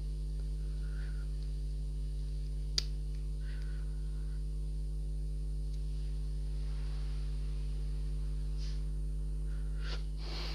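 Steady electrical mains hum, with one sharp click about three seconds in and a few faint rustles.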